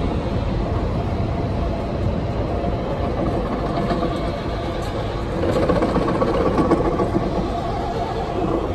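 Alstom Cityway low-floor articulated tram passing close by on street rails: a steady rolling rumble with a hum of steady tones, growing louder about five and a half seconds in.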